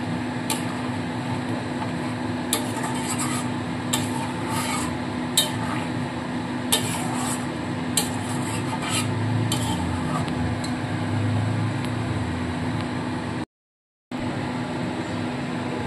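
Wooden spatula stirring and scraping thick korma gravy in a metal kadai, with occasional sharp clicks against the pan, over a steady simmering sizzle as the masala is cooked down. The sound cuts out completely for about half a second near the end.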